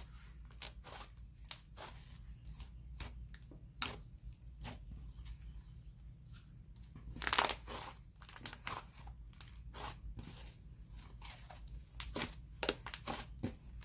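Slime being stretched and squished by hand, giving off irregular small crackling pops and clicks, with a louder cluster of crackles about halfway through.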